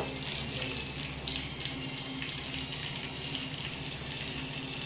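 A pot of noodles boiling in water, with a steady bubbling hiss and small clicks from a metal spoon stirring it.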